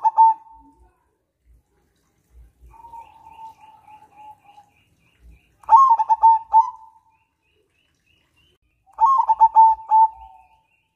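Zebra dove (perkutut) singing: three loud phrases of quick staccato coos, at the start, about six seconds in and about nine seconds in, with a softer, more drawn-out cooing phrase around three seconds in. A faint run of high chirps sounds behind it.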